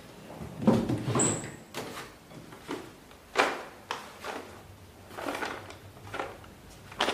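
Drawers of a metal cabinet being slid shut and open and their contents rummaged through: an irregular series of scrapes and knocks, the loudest about a second in and again about three and a half seconds in.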